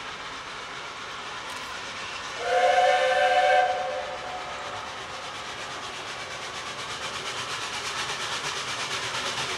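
Narrow-gauge steam locomotive sounding a loud chime whistle once, for just over a second, about two and a half seconds in. It then comes on with a steady beat of exhaust chuffs that grows louder as it approaches.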